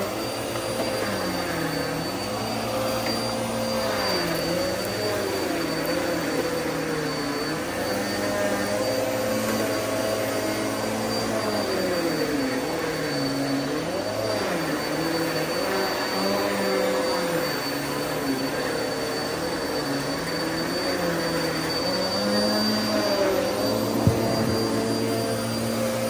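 Upright vacuum cleaner running over carpet, with a steady high whine and a lower motor note whose pitch dips and rises every couple of seconds. A single sharp click comes near the end.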